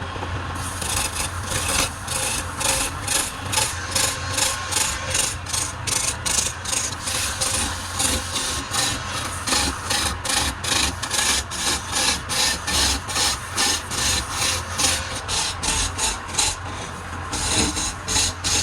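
Rhythmic scraping strokes of a tool against wood, about three a second, over a steady low motor hum.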